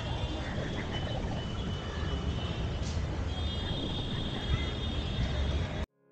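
Outdoor ambience picked up while walking: a steady low rumble and noise wash with a faint high-pitched hum that comes and goes. It cuts off abruptly near the end, as music starts to fade in.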